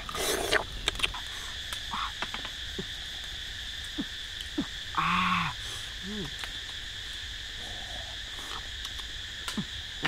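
Steady high chirring of forest insects, with scattered clicks and two short louder bursts of noise, one at the start and one about five seconds in.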